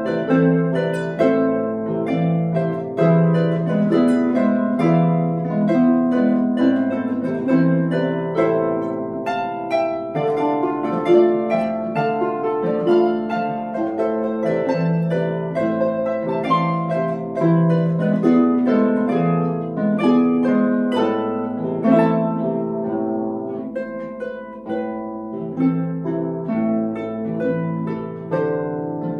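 Duet of two Celtic harps playing a habanera: plucked notes ringing over a recurring bass figure, with melody and accompaniment between the two harps.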